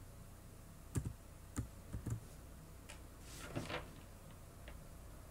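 A few separate keystrokes on a computer keyboard, spaced irregularly as code is typed, with a brief soft hiss a little past the middle over a low steady hum.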